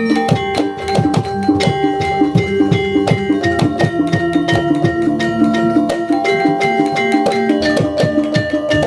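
Instrumental music with a fast, even percussion beat under sustained melodic notes.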